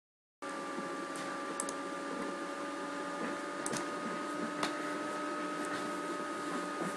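A steady machine hum with several held tones over a faint hiss and a few soft clicks, starting abruptly after a moment of silence: background noise from a running fan or small motor.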